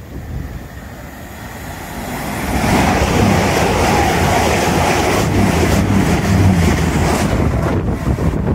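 Two coupled Class 220 Voyager diesel multiple units passing through a station at speed without stopping. The rumble and underfloor diesel engine hum grow from about two seconds in and stay loud as the train runs past close by.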